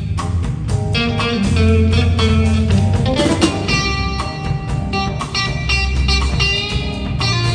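Jazz tune played with electric guitar prominent over bass and drums, with chords changing every second or so.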